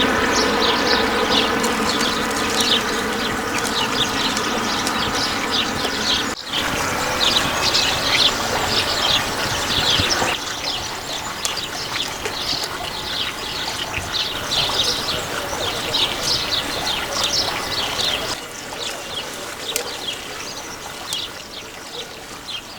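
Wild birds chirping and singing densely over a steady rush of background noise. The background changes abruptly a few times, and a steady droning tone underlies the first half.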